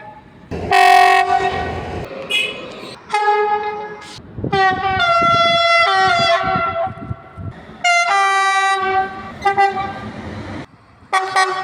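Train horns sounding in a series of blasts, short and long; the longest lasts about three seconds, near the middle.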